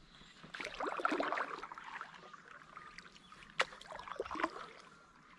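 Water splashing and trickling at the side of a kayak, loudest in the first two seconds. A sharp click follows about three and a half seconds in, then a few light knocks.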